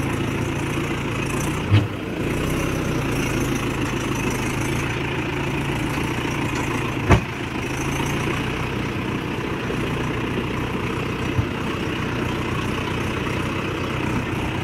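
Four-wheel-drive farm tractor's diesel engine running steadily, heard from on board as it drives along a rough mud track. Three sharp knocks cut through it, the loudest near the middle.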